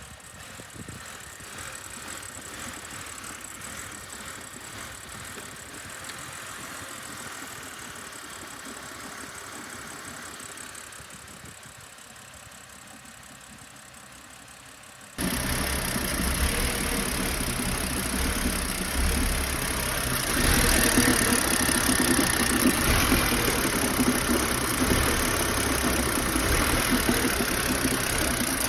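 BMW E90's N52 inline-six engine idling very roughly, quieter at first and then much louder from about halfway through. The rough idle is one that the uploader ties to the PCV (crankcase vent) valve.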